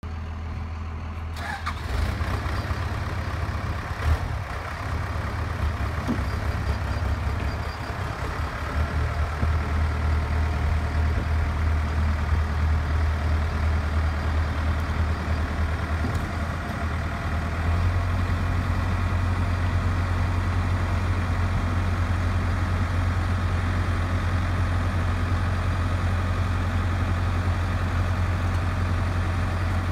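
Pettibone T884 telehandler's engine running with a steady low rumble, a single sharp knock about four seconds in. About two-thirds of the way through, the rumble grows louder and more even.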